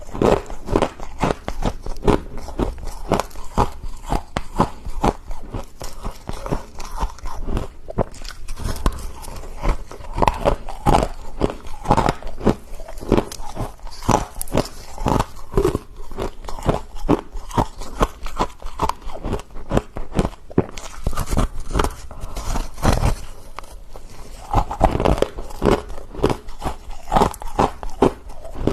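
A person biting and chewing freezer frost, with rapid, irregular crunching throughout.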